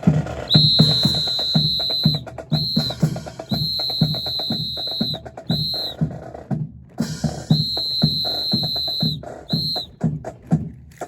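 A percussion section of drums beating a steady march rhythm, about three beats a second, while a whistle is blown in long-then-short pairs, three times over. The drums thin out near the end.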